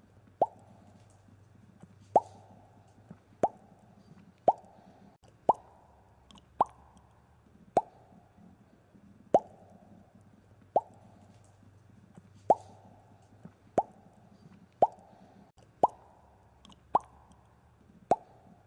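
Bubble popping sounds: a series of about fifteen pops at roughly one a second, slightly uneven. Each is a sharp pop with a quick upward 'bloop' in pitch.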